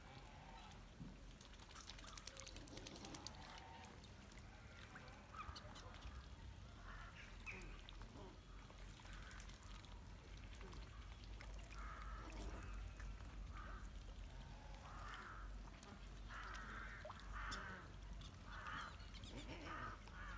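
Pond ducks calling: short repeated calls, scattered at first and then coming in a steady series for the last few seconds. A low steady rumble lies beneath.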